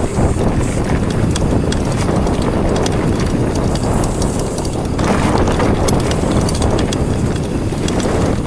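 Mountain bike descending a rough, rocky trail at speed: tyres rumbling over stones, with many quick clicks and knocks from the chain, bike and loose rock, and wind rushing over the microphone.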